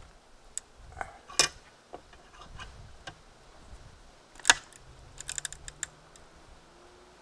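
Scattered clicks and light taps of small hard parts and tools being handled while an electronic circuit-board component is picked apart, with the sharpest click about four and a half seconds in and a quick run of ticks just after.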